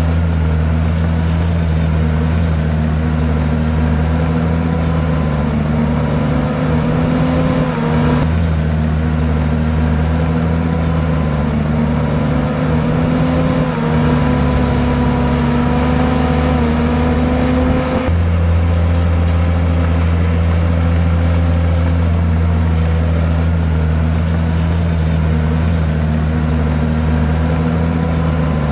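Komatsu bulldozer's diesel engine running hard and continuously. Its note sags and picks back up a few times as it works.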